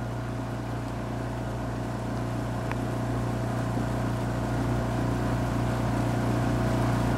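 Motor launch's engine running steadily with a low hum, slowly getting louder.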